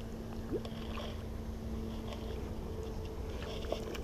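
Low, steady rumble of moving water and wind on the microphone, with a faint steady hum and a few faint ticks.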